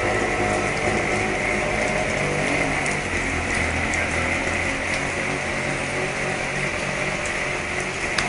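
An engine running steadily under a continuous hiss of rain.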